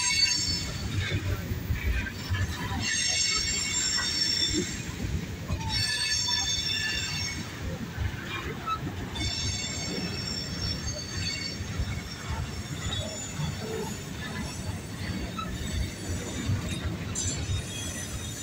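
Freight train rolling past, its wheels rumbling and clattering over the rail while the wheel flanges squeal high-pitched in several stretches during the first twelve seconds or so, the squeal then dying away under the rumble.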